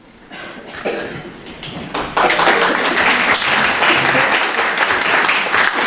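Audience applauding: a few scattered claps at first, swelling to full applause about two seconds in, with voices mixed in.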